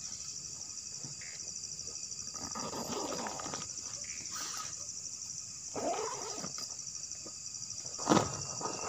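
Steady, pulsing night chorus of insects, with occasional animal calls that bend in pitch twice, and a single sharp knock near the end that is the loudest sound.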